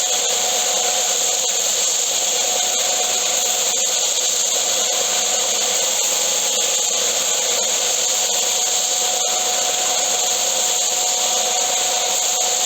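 Belt sander running steadily while the edge of a sanding block is rolled against the moving belt, rounding off its sharp 90-degree edge.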